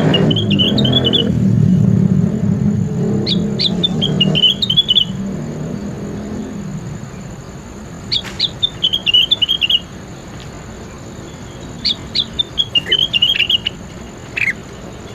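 A songbird singing the same short phrase four times, a few seconds apart: each is a few sharp high notes and then a quick warbling trill. A low rumble underlies the first half and fades out by about seven seconds in.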